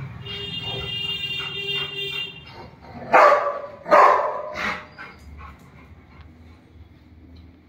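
Rottweiler barking twice, loud and sharp, about three and four seconds in, with a softer bark just after. Before the barks a thin high whine runs for about two seconds.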